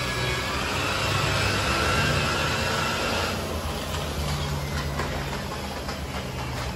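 Electric rotary car polisher running, its foam pad buffing polishing compound on painted car panels. A steady motor hum with a higher whine that stops about three seconds in, leaving the lower hum.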